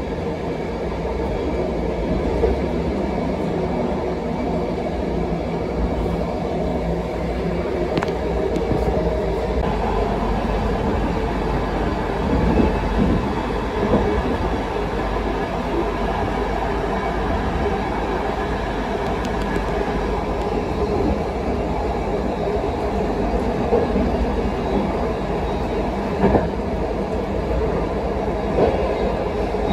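Passenger train running along the rails: a steady rumble of wheels on track, with a few sharper clacks from the wheels now and then.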